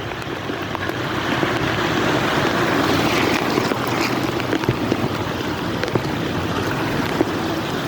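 Heavy rain pouring steadily, a dense hiss with scattered taps of drops, growing a little louder about a second in.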